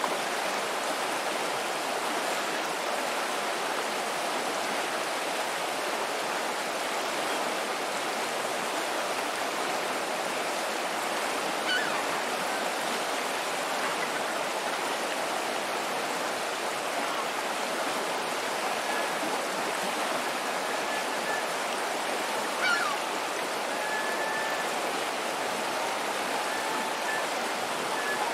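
Fast-flowing river water rushing steadily over a riffle, with a couple of faint brief sounds partway through.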